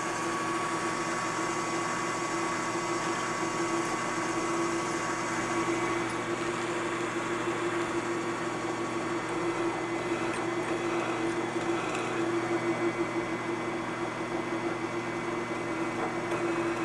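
Milling machine spindle running steadily while a twist drill bores down through stacked aluminium plates, a steady machine hum with a fixed higher tone over it.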